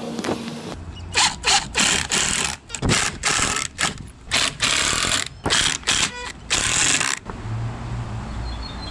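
Cordless impact driver driving screws into wood in a series of about ten short bursts, loud and rattling, which stop about seven seconds in.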